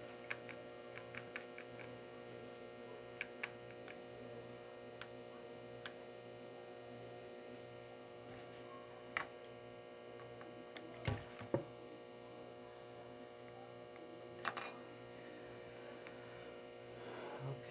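Steady electrical hum, with light ticks of a wooden stick stirring paint in a plastic palette during the first few seconds. Later there are a few louder knocks and one sharp click.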